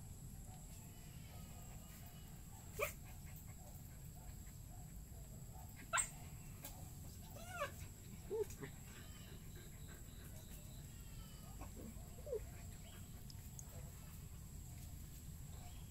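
Faint short animal calls, each falling in pitch, three of them around the middle and later on, with two sharp clicks before them, over a low steady outdoor rumble.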